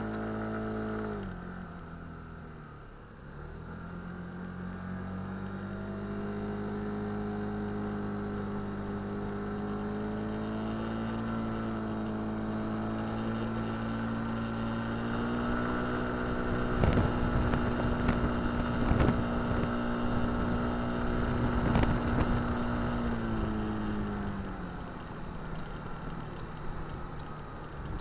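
Kymco Dink Street scooter's single-cylinder engine, just past its 800 km running-in, dropping back briefly and then pulling away, its note rising steadily for over ten seconds. It holds at cruising speed with a few sharp thumps, then eases off near the end.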